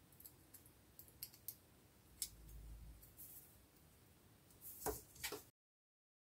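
Faint clicks and scrapes of a small printed circuit board and a film capacitor's wire leads being handled between the fingers, with a louder knock and rustle about five seconds in; the sound then cuts off to dead silence.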